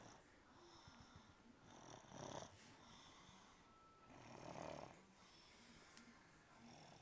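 Faint snoring: two snores, one about two seconds in and a longer one about four and a half seconds in, with quiet breathing between.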